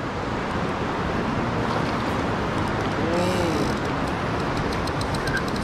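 Steady rush of river water flowing over and between boulders, with a run of quick, light clicks from a spinning reel near the end.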